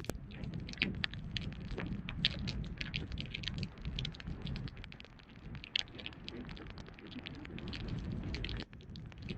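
Irregular crackles and light taps over a low rumble, picked up through a phone sealed in a clear waterproof bag.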